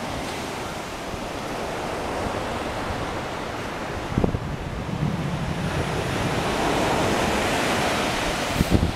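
Ocean surf washing steadily, with wind buffeting the microphone; the wash swells louder in the second half. A brief knock about four seconds in.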